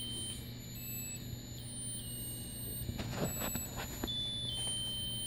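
Musical rotating lotus birthday candle playing its tinny electronic tune from a small buzzer: a string of high, beep-like single notes, each held a fraction of a second before stepping to the next. A few soft clicks and rustles come about three seconds in.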